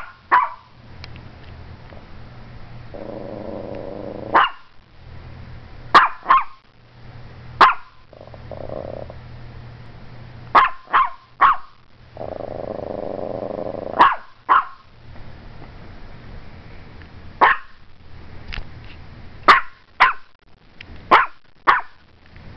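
Morkie, a small Maltese–Yorkshire terrier cross, barking in sharp short yaps, singly and in quick doubles and triples, about fifteen in all. Twice it holds a low growl for a second or two between barks.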